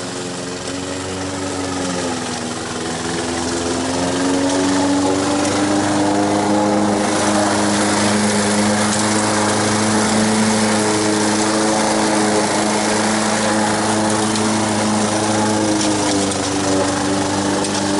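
Walk-behind gas lawn mower's small engine running under load as it cuts tall, thick grass. Its pitch dips a little near the start, then steadies. It gets louder a few seconds in as the mower comes close, with more cutting hiss on top.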